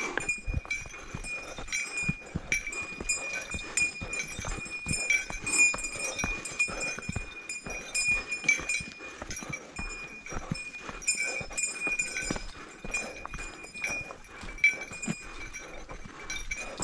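Hikers' footsteps crunching and scuffing on a dirt forest trail, with a steady high ringing tone running throughout.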